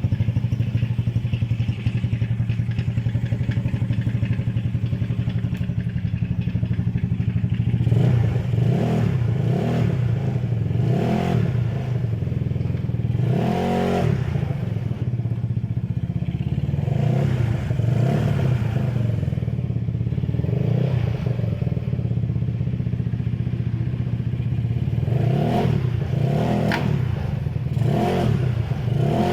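Yamaha Mio Sporty scooter's single-cylinder engine, built up to 200cc with a four-valve head and carburettor, idling steadily, then from about eight seconds in blipped again and again, each rev rising briefly and dropping back to idle.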